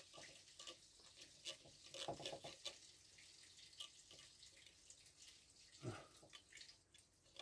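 Near silence with faint small clicks and rubbing as gloved hands press a seal onto a shock absorber's lower spring cup, seating its pegs in the holes.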